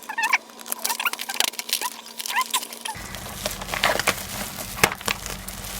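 Packaging being handled and opened: a run of small clicks, crackles and rustles, with a few short high squeaks in the first half. A low steady hum comes in about three seconds in.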